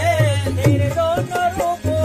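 Qawwali music: a wavering, ornamented melody over a steady, driving drum rhythm.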